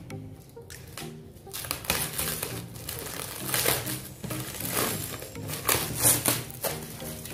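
Thin plastic wrap crinkling in irregular bursts as it is pulled and bunched off a cardboard box, loudest about six seconds in. Quiet background music plays underneath.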